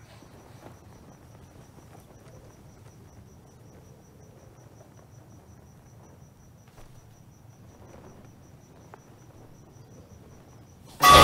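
Faint cricket chirping, an even rapid pulse, over a low ambient hum. Near the end a sudden loud blast of sound cuts in.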